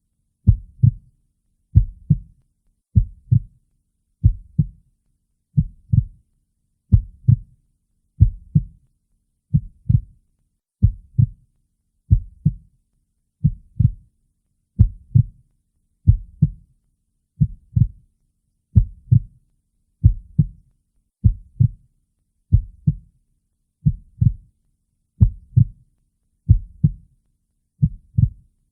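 A slow, steady heartbeat: a low double thud (lub-dub) on each beat, about every 1.35 seconds, some 45 beats a minute.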